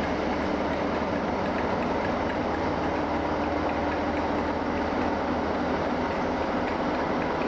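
Class 47 diesel locomotive passing slowly, its Sulzer twelve-cylinder engine running with a steady, even rumble.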